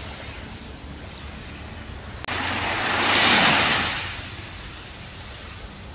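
Gentle surf on a sandy beach: a steady wash of small waves, broken by an abrupt cut a little over two seconds in, after which one wave swells, peaks about a second later and fades as it washes up the shore.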